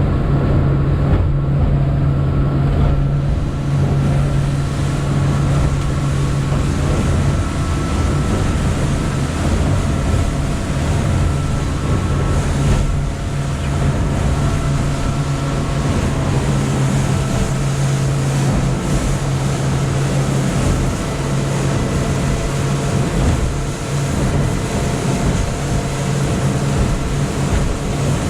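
A small fishing boat's engine running steadily underway, with a constant low hum over wind and water noise.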